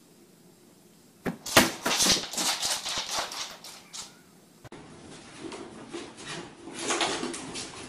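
Pets' claws clicking and scrabbling on a slick hard floor in a quick flurry about a second in. After a cut, lower room noise with scattered light taps.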